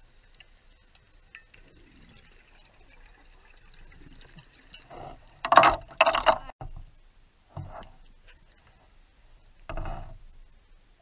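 Underwater bubbles from a scuba diver's breathing, gurgling past the microphone in short bursts: two loud bursts close together about halfway through, a shorter one a second later, and another near the end.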